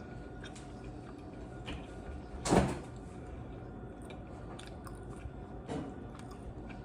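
Close-miked chewing of tacos and tostadas, with small mouth clicks and one louder crunching bite about two and a half seconds in.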